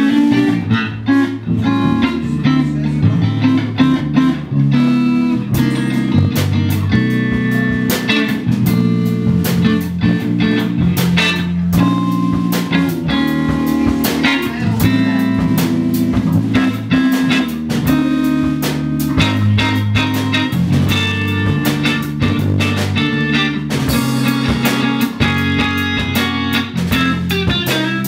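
Live blues band playing: electric guitar over an electric bass line, with the drum kit joining about five seconds in.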